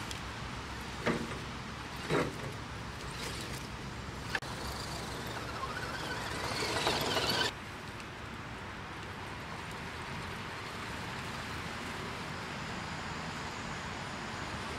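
Axial SCX10 RC crawler's small electric motor and drivetrain whirring as it climbs a rocky, leaf-covered slope, with a couple of short louder scrabbles from the tyres. The sound grows louder, then cuts off suddenly about halfway through, and a steady, quieter run follows.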